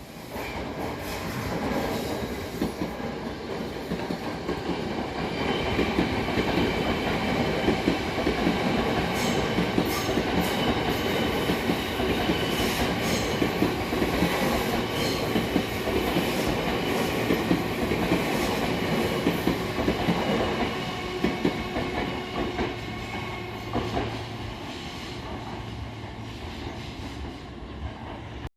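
Tobu Skytree Line electric train passing through a station platform without stopping, running slowly, its wheels clacking over rail joints with a steady rumble and faint squeal.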